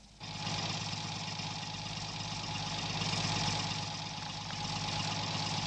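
Tow truck engine idling steadily, coming in abruptly just after the start.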